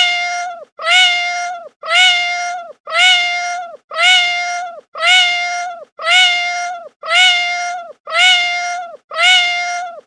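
Domestic cat meowing lightly, the same short meow repeated about once a second, each call rising briefly and then sliding down at the end.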